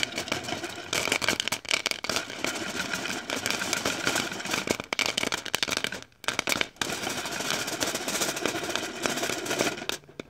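Popcorn popping fast, a dense run of pops that breaks off twice briefly about six seconds in, then picks up again and stops near the end.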